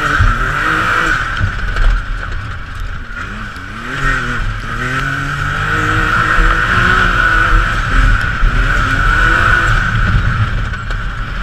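Can-Am Maverick X3 side-by-side's engine revving up and down under throttle off-road, heard from inside the open cab, with a steady high whine over it. The revs ease off about three seconds in, then build again.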